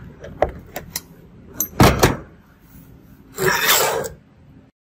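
Handling noises on a wooden workbench: a few light clicks, then two loud knocks just before two seconds in, then about a second of scraping and rustling as the camera is picked up and moved. The sound cuts off suddenly near the end.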